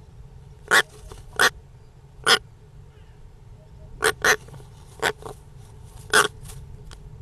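European rollers giving short, harsh calls, about seven in all: three in the first couple of seconds, then, after a pause, four more in quick succession.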